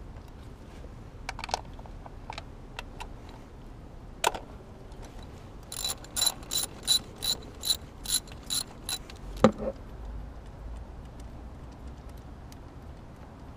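A 3/8-inch drive ratchet with a 10 mm socket clicking as the ignition-coil hold-down bolts are loosened: a few scattered clicks, then a run of about ten quick ratchet clicks over three seconds. One sharp knock follows, the loudest sound.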